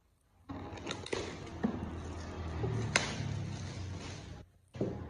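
Packaging handling: the iPad box lid being worked off and clear plastic film crinkling, with a few sharp clicks and snaps. It starts about half a second in and breaks off briefly near the end before resuming.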